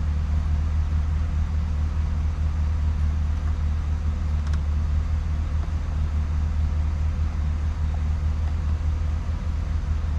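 Chevrolet Silverado 2500 HD engine idling steadily after an oil change with fresh synthetic oil, running pretty smooth with no warning chimes. A faint tick is heard about four and a half seconds in.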